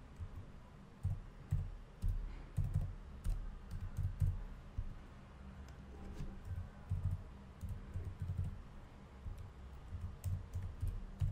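Computer keyboard being typed on: short, irregular bursts of keystrokes with brief pauses between them.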